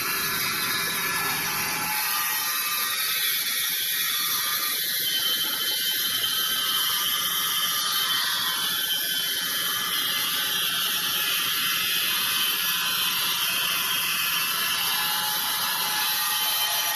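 Band sawmill machinery running with a steady high-pitched whir and hiss, its pitch drifting slowly.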